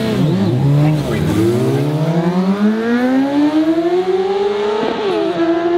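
Sport motorcycle engines revving in quick blips at the start line, then launching hard: a long rising engine whine as they accelerate away, with an upshift drop in pitch about five seconds in before it climbs again.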